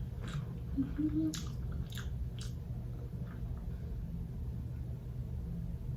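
A person chewing food close to the microphone, with a handful of small crisp clicks and crunches in the first half, over a steady low hum.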